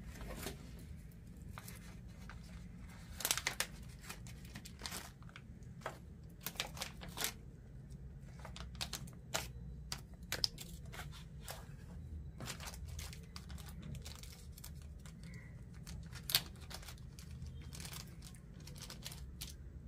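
Small clear plastic packet of V-wheel hardware crinkling as hands open it and tip out the parts: an irregular run of sharp crackles, louder now and then.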